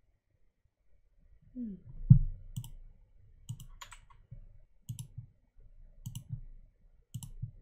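Computer mouse clicking: a series of sharp single and double clicks, roughly one a second, with a louder thump about two seconds in.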